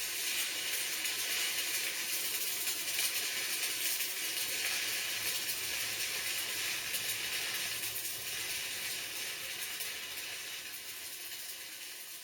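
Electric arc welding of a steel angle-iron joint: a steady crackling sizzle that fades slightly near the end.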